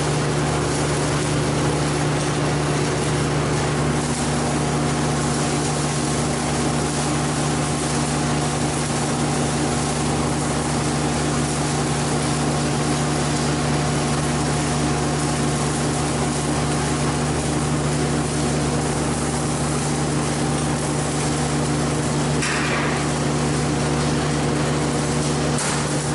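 Electric arc welding: a steady hissing arc over a constant low hum, cutting off about a second before the end.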